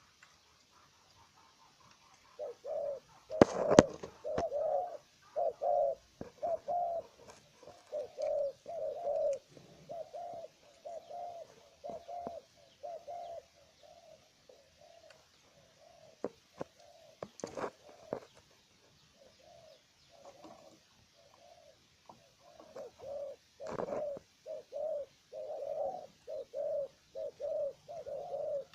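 Hybrid spotted dove, a caged decoy bird, cooing in long runs of repeated low notes, pausing for several seconds midway. A few sharp clicks sound now and then.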